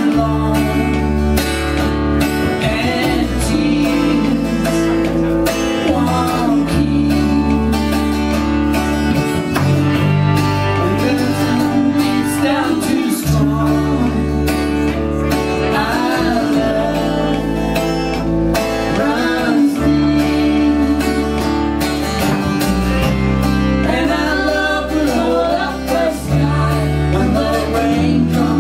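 A live country/Americana song: a man sings lead while strumming an acoustic guitar, and a woman sings harmony with him. Low, sustained bass notes run underneath.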